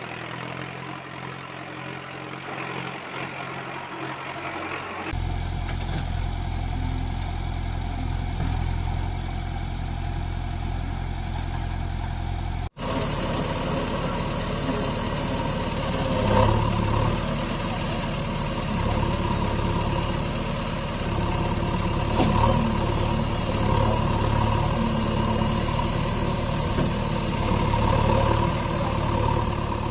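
Vehicle engine idling and running steadily with a low hum. The sound changes abruptly twice, about five seconds in and again near thirteen seconds with a momentary dropout, as at a cut.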